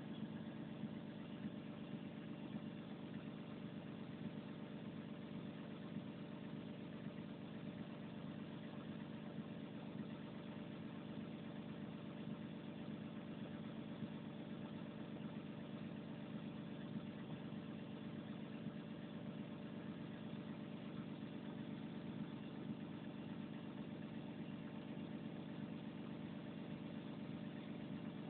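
Volvo 360 excavator's diesel engine idling steadily.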